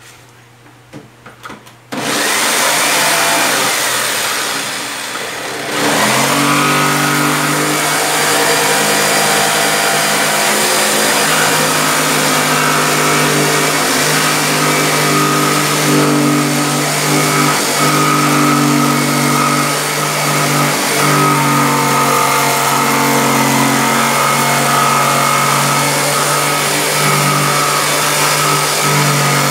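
Corded jigsaw switched on about two seconds in, then running steadily as its blade cuts a handle opening through the top panel of a speaker box. Its motor hum rises to full level near six seconds and dips briefly a few times as the cut goes on.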